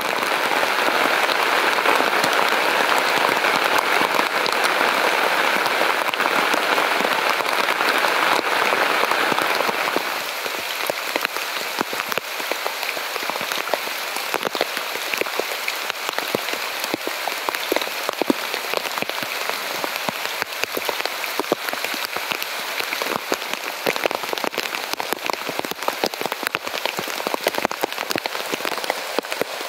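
Steady rain falling, with many distinct drops striking a surface. About ten seconds in it becomes somewhat quieter, and the individual drop hits stand out more.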